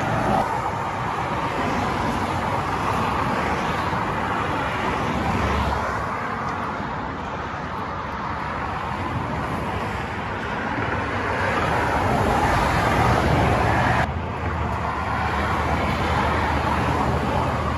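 Steady road noise of a vehicle driving: a continuous rush of engine and tyre sound that changes abruptly about fourteen seconds in.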